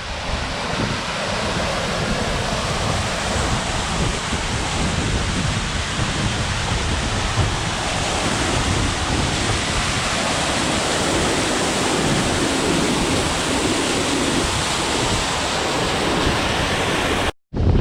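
Waterfall pouring: a steady, dense rush of falling water, with wind buffeting the microphone. The sound cuts out abruptly for a moment near the end.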